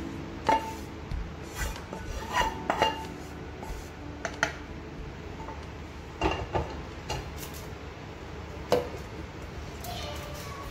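A spatula scraping and tapping masala out of a pan into a steel mixer-grinder jar, with scattered knocks and clinks of metal, and the jar's lid being fitted near the end.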